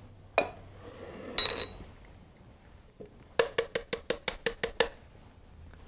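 Electric spice grinder emptied of ground juniper berries: a click and a sharp knock as its clear plastic lid is lifted off and set down, then a quick even run of about ten knocks as the upturned grinder is tapped against a glass mixing bowl to shake the spice out.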